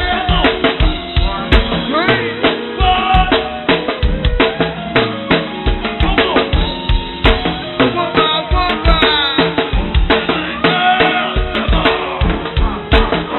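Live go-go band playing a steady drum-kit and percussion groove with bass drum, snare and rimshots, and instrument lines over it. The recording is dull and lo-fi, with no top end, as from a poor-quality PA tape.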